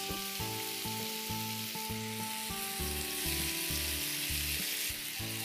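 Chopped tomatoes sizzling steadily in hot ghee in a nonstick pan as they are stirred with a silicone spatula, cooking down so their water boils off and they soften. Soft background music plays underneath.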